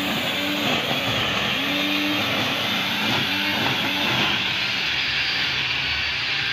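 Electric angle grinder rigged as a string trimmer, with nylon trimmer line threaded through a drilled cutting disc, running at speed as it cuts grass. Its pitch dips and recovers again and again.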